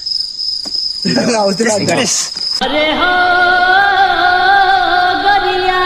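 Steady high-pitched insect buzz, with a man's voice briefly about a second in. At about two and a half seconds it cuts off suddenly, replaced by a long, steady pitched note with overtones.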